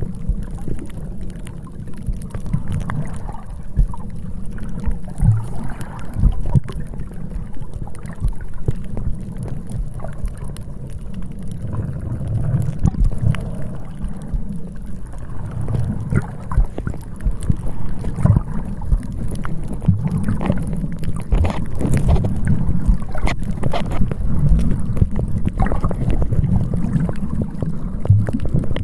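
Wind buffeting the microphone: an uneven low rumble with scattered thumps, typical of a phone filming on a windy seashore.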